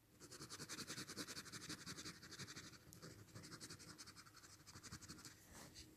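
Faint scratching of a pen on sketchbook paper as quick back-and-forth strokes shade in an area, several strokes a second. The strokes become sparser and fainter after about two and a half seconds.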